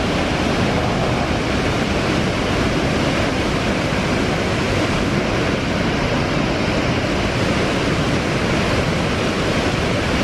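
Victoria Falls: the Zambezi's water plunging into the gorge and churning on the rocks below, a steady, even roar.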